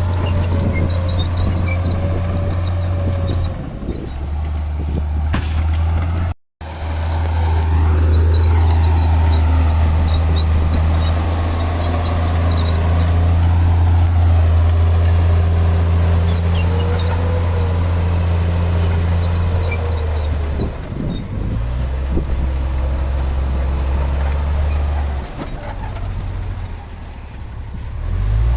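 Heavy diesel engines of earthmoving machinery running steadily with a deep, constant drone, the pitch shifting as the machines work. The sound cuts out for a moment about six seconds in and grows quieter near the end.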